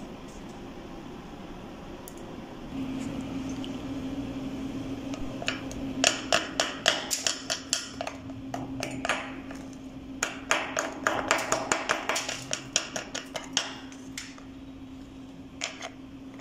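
Chipping hammer striking a freshly laid 6013 stick weld to knock off the slag: sharp metallic taps about four a second, in two runs with a short pause between and a couple more near the end, over a steady low hum.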